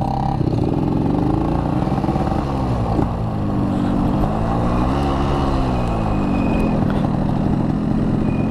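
Yamaha RX-King's two-stroke single-cylinder engine riding under throttle, its pitch rising and falling twice and then holding steadier near the end.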